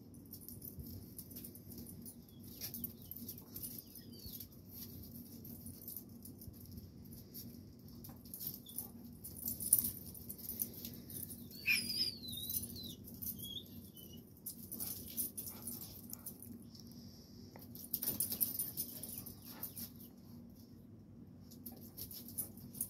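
Two dogs, a blue pit bull and a black-and-tan dog, scuffling and wrestling on concrete: quick scuffs and scrabbling claws, with a short high squeal about twelve seconds in.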